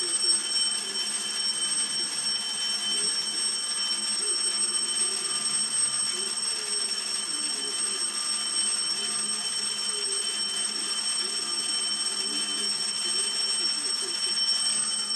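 Alarm clock ringing on and on with a steady, unbroken high electronic tone.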